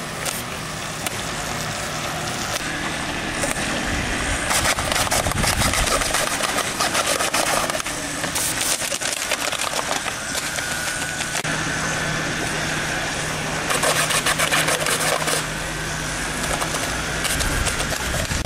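CO2-powered BB cannons on remote-control model warships firing in rapid clattering bursts, three main volleys, over a steady low hum.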